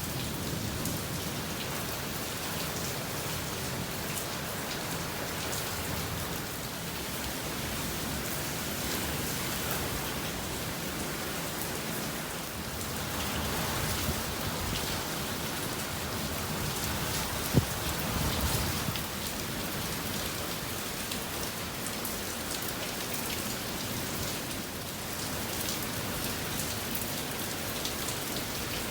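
Steady rain falling and pattering on surfaces, a little heavier midway through. One sharp click stands out about two-thirds of the way in.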